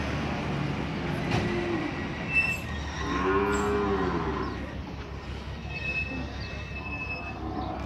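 Zebu cattle in a holding pen mooing: one long moo about three seconds in that rises and then falls in pitch, after a shorter, weaker call a second or so earlier.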